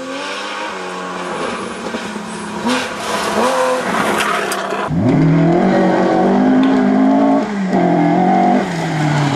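Historic rally car engines at full throttle on a gravel stage. One engine revs and changes gear as the car comes on; about halfway a louder engine climbs sharply in pitch, holds high revs, dips briefly at a gear change and climbs again.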